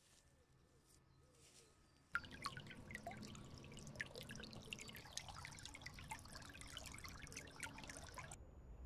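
Shallow stream babbling and trickling over stones, a dense run of small splashes and drips. It starts suddenly about two seconds in, after near quiet, and cuts off near the end.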